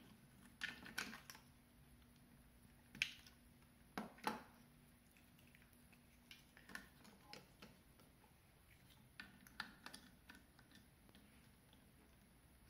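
Faint, scattered clicks and taps of hard plastic toy parts being handled and pegged together: 3D-printed upgrade pieces fitted onto a Transformers figure. A few louder knocks come about three and four seconds in.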